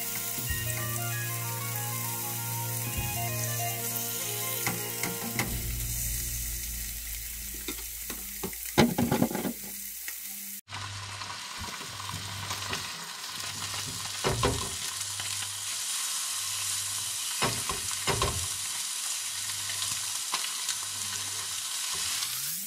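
Mackerel fillets sizzling as they fry in a hot pan, with a few knocks and scrapes of a spatula against the pan as they are turned. Background music plays underneath.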